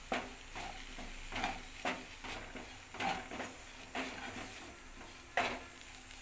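Wooden spatula stirring and scraping sautéing onions and tomato around a non-stick kadai in repeated strokes, over a faint sizzle of frying. One sharper scrape or knock about five seconds in.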